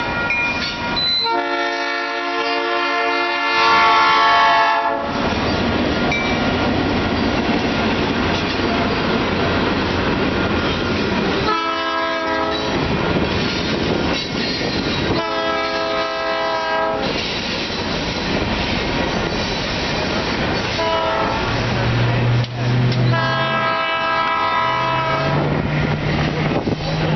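Northwestern Pacific diesel locomotives' air horn sounding repeated chord blasts: a long one about a second in, two shorter ones mid-way, a brief one and a final long one near the end. Between blasts the freight cars rumble and clatter along the rails, and a low engine hum joins near the end.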